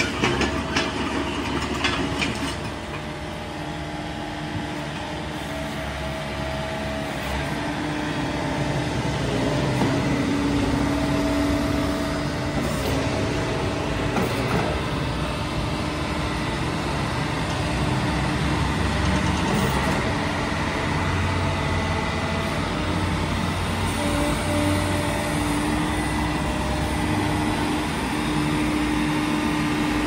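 Yanmar YB451U mini excavator's four-cylinder diesel engine running steadily, with a whine that comes and goes in stretches as the boom and bucket are worked. A few sharp clicks near the start.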